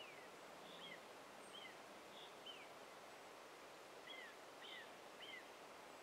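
Faint songbird chirps in a pine forest: about seven short notes that slur downward, with a pause of over a second midway, over a steady soft hiss of forest ambience.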